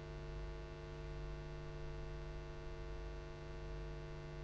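Steady low electrical mains hum with a faint hiss, unchanging throughout; no other sound.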